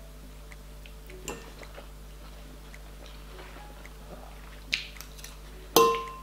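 Quiet chewing of a mouthful of noodles with a few faint clicks, then a metal fork striking the glass bowl near the end: a sharp clink that rings briefly.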